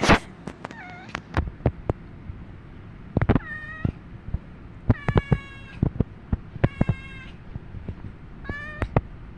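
Five-month-old kitten making a string of short chirping meows, some trilled, directed up at dangling fan pull cords. Sharp clicks fall between the calls, and a loud bump comes right at the start.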